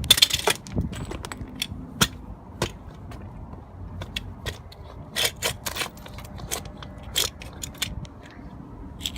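Metal stapler being banged and handled: a run of sharp, irregular metal clicks and knocks, with a cluster of loud hits at the start and another about five seconds in.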